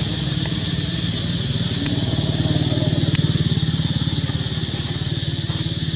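An engine running steadily, a low rapid throbbing pulse, with a steady high-pitched hiss above it.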